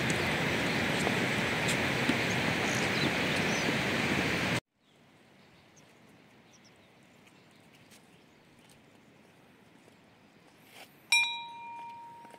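Steady hissing outdoor noise that cuts off abruptly about four and a half seconds in, leaving a quiet background with faint ticks. Near the end a metal bell is struck once and rings out in several clear tones that fade away.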